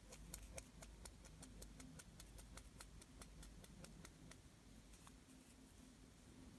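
Slime being worked by hand, giving faint sticky clicks and small pops, several a second at first and thinning out over the last couple of seconds.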